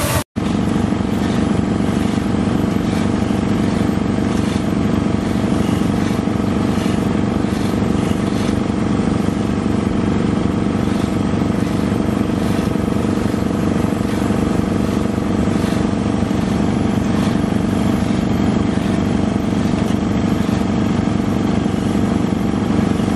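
An engine running steadily at constant speed, with a slow, regular throb in its low drone.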